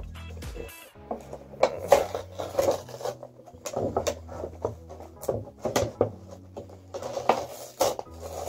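Cardboard doll box and its plastic packaging being handled and opened: irregular rustling, scraping and small clicks and taps, over a low steady hum.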